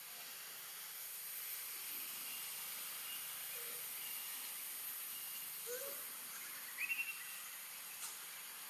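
Steady high-pitched hiss of forest background. There is a short low call a little under six seconds in, then a quick run of four high chirps about a second later.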